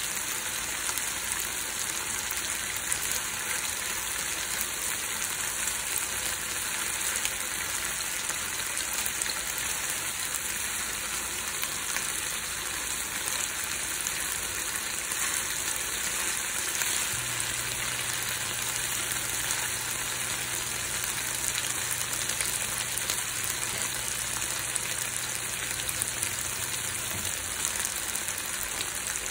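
Chicken leg quarters sizzling steadily in a hot frying pan. A faint low hum joins in a little past halfway and stops near the end.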